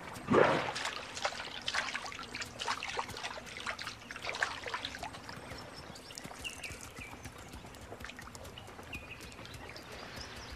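Water splashing at a drinking pool: one sharp splash about half a second in, then small splashes and drips for a few seconds, settling down with a few faint chirping calls near the end.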